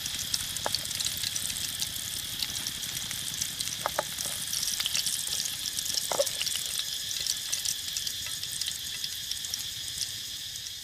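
Bread slices frying in hot oil in a steel wok: a steady sizzle full of fine crackles, with a few brief clinks.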